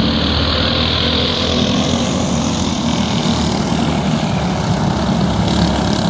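Racing go-kart engines running steadily at a loud, even level.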